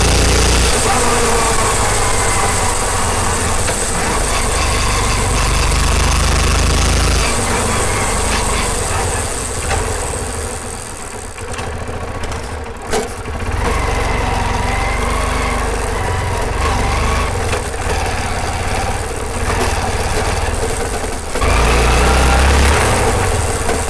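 Hero Karizma R's single-cylinder engine and drive chain running while the bike is ridden, heard up close at the chain guard, with knocks and rattles from the chain guard as it jolts. The guard's panels are not seated properly, so it rattles against the chassis over bumps and jerks. The engine note eases off about halfway through, with a sharp knock, then picks up again.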